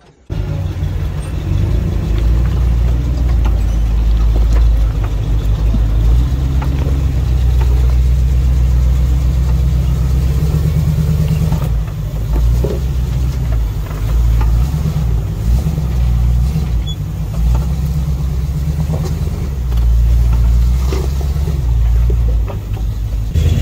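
Off-road 4x4 engine running at low crawling speed over rocks: a deep, steady low sound with occasional short knocks.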